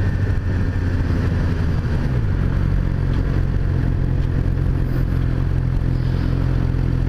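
Suzuki GSX-R600's inline-four engine running while riding at road speed, over a steady rush of wind noise. Its note drops about two seconds in, then holds steady.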